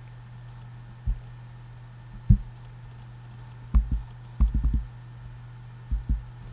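Computer keyboard keystrokes: scattered single key presses, with a quick run of three or four about four and a half seconds in, over a steady low hum.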